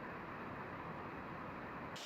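Steady low rumbling noise with no distinct events, stopping abruptly just before the end.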